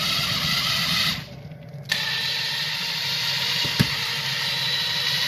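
Cordless drill turning a paddle stirrer through hot cornmeal scrapple mush in a steel kettle, its motor whining steadily. It cuts out for under a second about a second in, starts again with a click, and there is a single knock near four seconds in.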